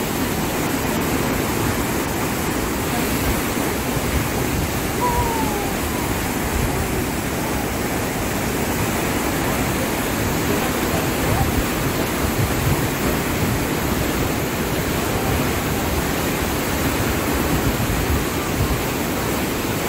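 Loud, steady rush of the Niagara River's white water pouring over the brink of the falls close by.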